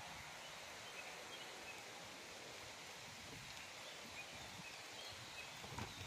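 Faint outdoor background noise: a low, even hiss with a few tiny, faint high chirps.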